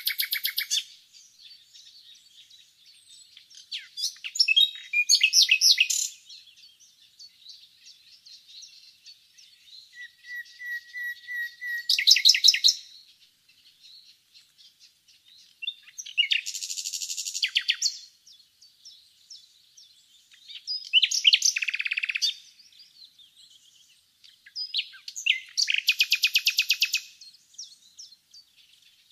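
Common nightingale singing: separate phrases every four to five seconds, several of them fast runs of repeated notes, and one a soft drawn-out whistle swelling into a loud burst near the middle.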